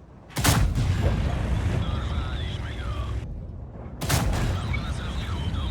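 Two gunshots about three and a half seconds apart, each a sharp crack followed by a long rumbling echo.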